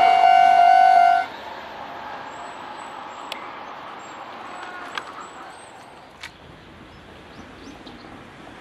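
Japanese level-crossing alarm (Kintetsu Minami-Osaka Line) sounding its steady electronic warning tone, which cuts off suddenly about a second in as the train clears. Then a quiet outdoor background follows, with a few sharp clicks and faint high chirps.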